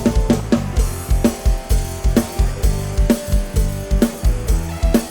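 Instrumental break of a live band on a rot hae sound truck: a steady kick-drum beat under bass and electric guitar, with no singing.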